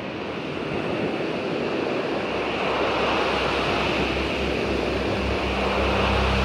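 Steady rushing hiss of analog static, swelling in at the start, with a low steady hum joining it about two seconds in.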